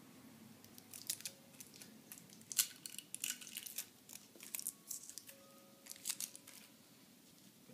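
Adhesive tape being peeled off the copper stub tubes of an old refrigerator compressor: a run of short, sharp crackles from about a second in until near the end.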